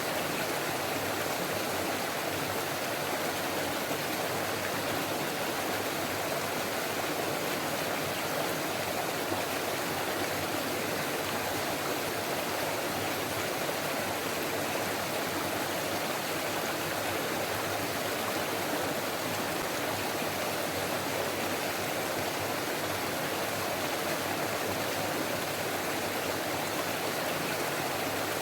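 Forest stream rushing and babbling over rocks, a steady, even flow of water with no breaks.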